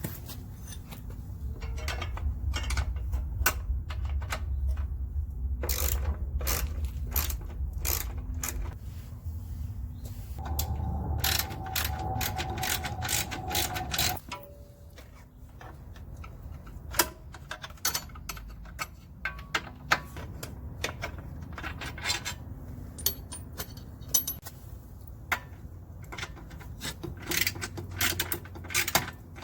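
Socket ratchet clicking in runs as bolts holding the old hardware are worked off a motorcycle's rear fender, with a low hum under the first half that stops about halfway through.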